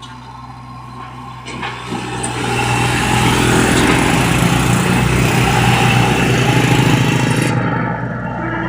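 Komatsu PC75 excavator's diesel engine running; it grows louder from about a second and a half in, then holds a steady, loud note.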